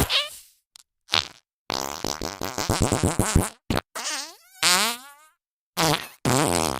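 A string of separate cartoon fart sound effects, one after another with short silences between. The longest, near the middle, is a rapid sputtering run lasting nearly two seconds, and the next has a wavering pitch.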